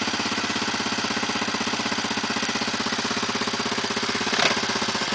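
Dirt bike engine idling steadily with an even, rapid pulse, and one brief sharp noise about four and a half seconds in.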